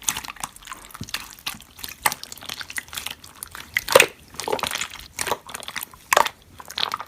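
Slime being squished and poked by hand, giving irregular wet clicks and small pops.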